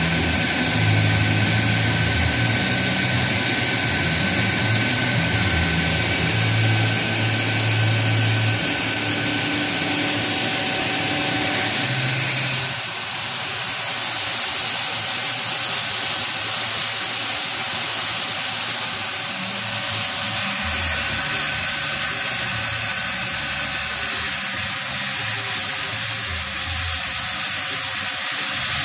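Doosan 700XLY CNC lathe turning a large metal workpiece under flood coolant: a steady spray hiss over the running machine, with a faint steady tone. About twelve seconds in, the lower rumble drops away and the spray hiss carries on.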